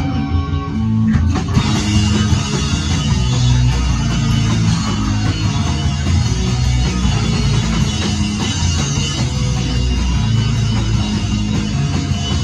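Live rock band playing loud, with electric guitar, bass and drum kit. About a second and a half in, the sound grows fuller in the top end as the band comes in harder.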